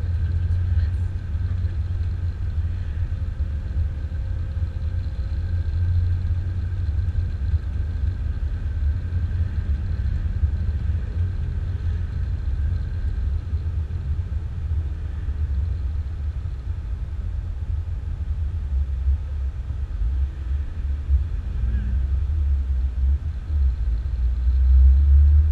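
Low, steady rumble of a Jeep's engine, tyres and wind heard from inside the cab while it drives along in traffic, swelling louder near the end.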